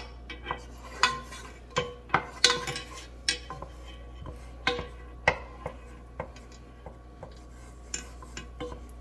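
A kitchen utensil knocking and clinking against a cooking pot of melting butter, about a dozen irregular sharp clinks, each with a brief ring.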